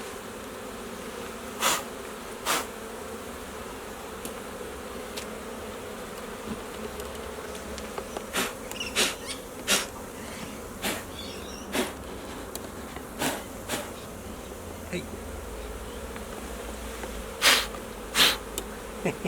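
Honeybees buzzing steadily in a swarm around an opened hive. About a dozen sharp clicks and knocks are scattered through it, the loudest near the start and near the end.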